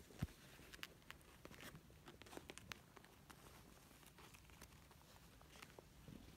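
Faint rustling and scratching of two kittens wrestling on fabric, with scattered small clicks and a soft bump just after the start.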